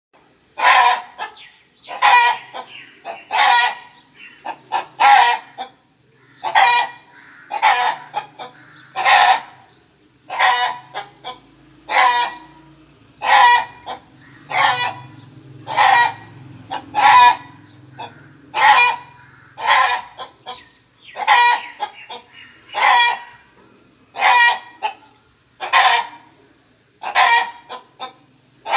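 Chickens clucking: short, loud calls repeated about every one and a half seconds.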